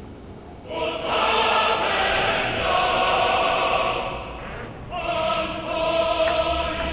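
A choir singing long held chords. It comes in under a second in, dies away around four seconds, and returns with a new chord about a second later.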